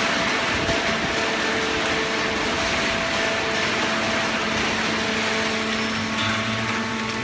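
Fully automatic waste paper baler running: a steady mechanical whir with several even hum tones, and a deeper hum coming in near the end.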